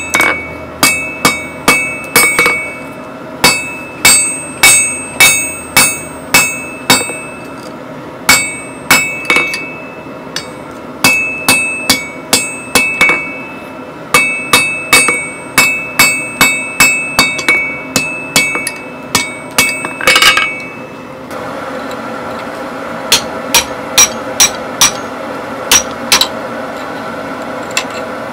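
Hand hammer striking hot steel on an anvil, in runs of blows about two a second with the anvil ringing after each blow and short pauses between runs. About twenty seconds in there is a brief rasping noise, then lighter, sparser hammer taps over a steady background hum.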